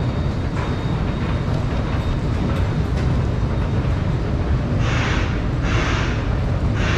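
Vienna U-Bahn metro train running with a steady, heavy low rumble. About five seconds in, two short bursts of hiss come in over it.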